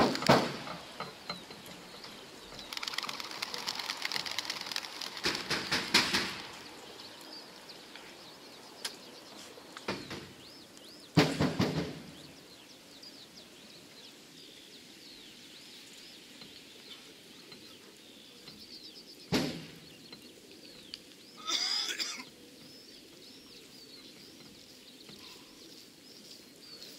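Racing pigeons' wings clattering in a flurry as birds take off from the crates of a transport truck, with several sharp knocks and faint chirping of wild birds.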